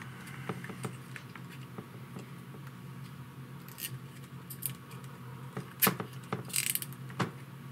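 Small clicks and light rattles of hands fitting zip ties and handling parts on a drone frame, with a sharper click about six seconds in followed by a short rasp. A steady low hum runs underneath.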